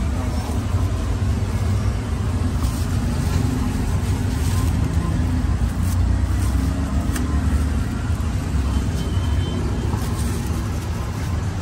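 Steady low rumble of passing road traffic, with a few faint, scattered knocks.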